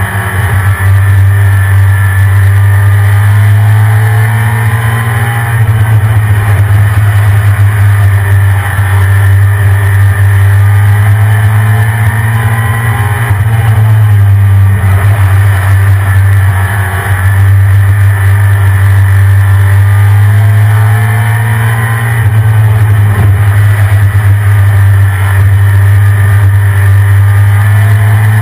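1993 Ford F-150 Lightning's 5.8-litre V8 running, stock exhaust, with a loud steady low drone and an engine pitch that rises and falls every few seconds.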